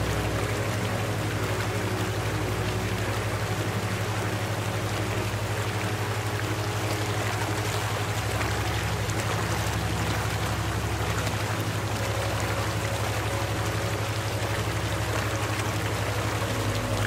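Steady flowing-water sound, like a stream, layered over a low sustained ambient drone; the drone's notes shift near the end.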